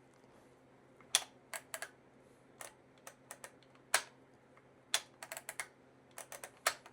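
A string of about twenty irregular, sharp clicks and taps from hand work on a transmission: tools and small parts being handled.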